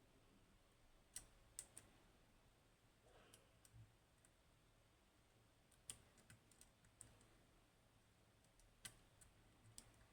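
Faint, scattered clicks of a lock pick working the pins of a Goal Z seven-pin Japanese pin tumbler lock, coming in small clusters of two or three.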